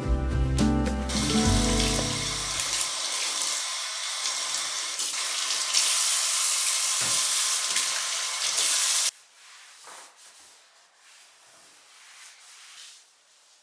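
Kitchen tap running water into the sink as a loud steady hiss, then shut off abruptly about nine seconds in; a few faint small sounds follow.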